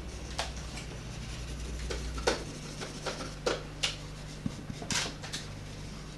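Sketching on paper: several short strokes at irregular intervals, over a steady low hum.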